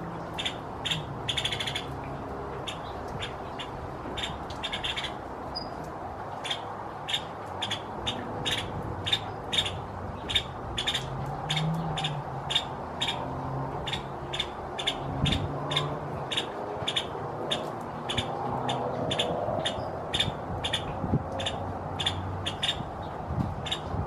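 Nuttall's woodpecker calling: a long series of short, sharp notes, about two a second, with a quicker cluster near the start.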